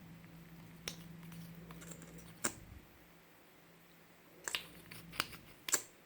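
Scissors snipping in short sharp clicks, about five at irregular intervals, as they cut a squishy, over a faint steady low hum that stops about five seconds in.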